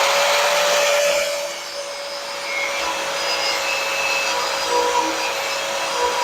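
Handheld power tool stripping paint off a steel go-kart frame ahead of welding, running at a steady high whine. The abrasive scrubbing noise is heaviest for the first second and a half, then eases as the tool bears on the metal more lightly.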